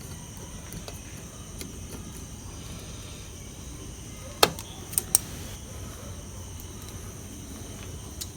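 A few sharp metallic clicks, one and then two in quick succession about halfway through, as a circlip is worked off a gearbox shaft with circlip pliers, over a faint steady hiss.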